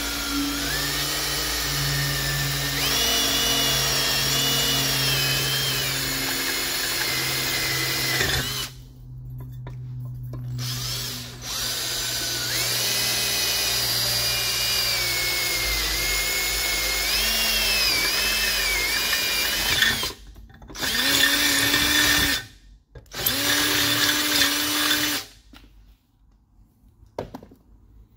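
Power drill boring holes through the aluminium Kirkey seat back brace, its motor whine rising and falling in pitch as the bit cuts. It runs in two long stretches with a short pause between, then two brief bursts before it stops near the end.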